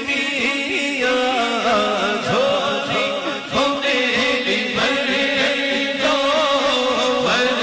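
Naat sung unaccompanied by a male voice through a microphone, in long wavering melismatic phrases with no clear words, over a steady held vocal drone.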